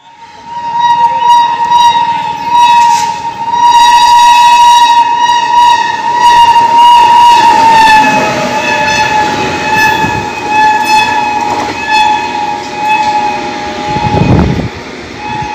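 Horn of a passing pair of Indian Railways electric goods locomotives (WAG-9 and WAG-7) running light, held as one long continuous blast that drops slightly in pitch about halfway through as they go by. Wheel-on-rail knocks and running noise sound under it, and a louder rumble comes near the end.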